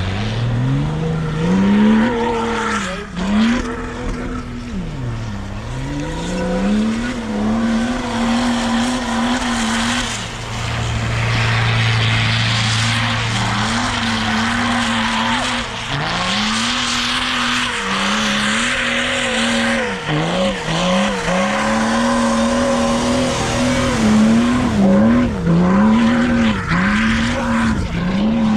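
An off-road 4x4's engine revving hard over and over, its pitch climbing to a steady top note, holding there and dropping back, while the wheels spin with a rushing hiss.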